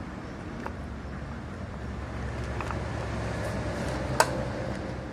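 Small metallic clicks and knocks from parts being handled in an open motorcycle engine crankcase, with one sharp metal click about four seconds in, over a steady low rumble.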